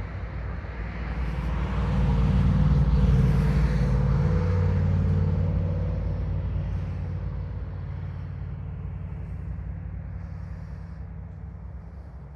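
A motor vehicle driving past, its engine and tyre noise swelling to a peak a few seconds in and then slowly fading away.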